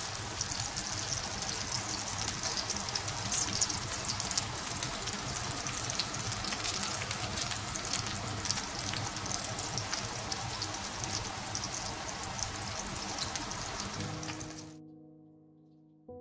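Salmon fillets sizzling in hot oil in a frying pan: a steady crackling hiss dotted with many small pops. It cuts off sharply near the end as piano music comes in.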